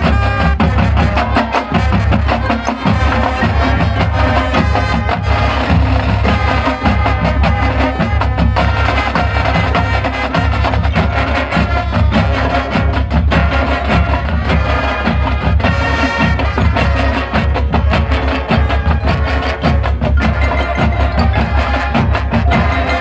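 Marching band playing its halftime show live: brass over a drumline, with a front-ensemble pit of marimbas and other mallet percussion, loud and continuous.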